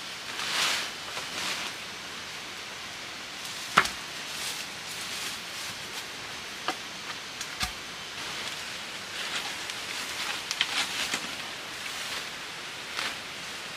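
Long bamboo pole being handled among rustling foliage, with one sharp knock about four seconds in and a few lighter taps a few seconds later.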